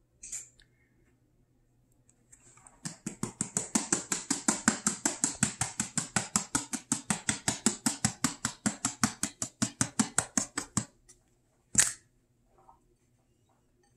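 Plastic-lidded shaker jar of ground cinnamon shaken over pastry dough: a rapid, even rattle of about five or six shakes a second lasting some eight seconds. A single sharp knock follows near the end.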